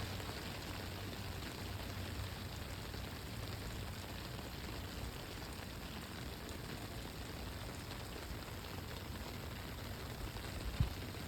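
Steady rain falling, an even hiss without pauses. A brief low thump sounds near the end.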